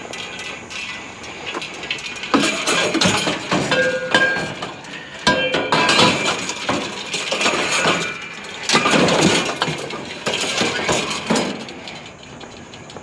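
Steel trampoline frame pieces and springs clanking and clattering as they are handled and set down, with several hard metal knocks and a couple of short metallic rings about four and five and a half seconds in.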